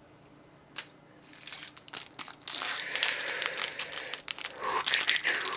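Foil Hidden Arsenal 4 booster pack wrapper crinkling as it is handled. Near quiet at first with a single tick, then the crinkling starts about a second and a half in and grows louder.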